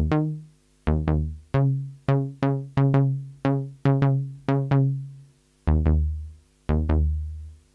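Sequential Prophet 6 synthesizer playing a bass patch of two detuned sawtooth oscillators: a rhythmic line of about a dozen short bass notes, each with a sharp attack and quick decay, with brief pauses near the end.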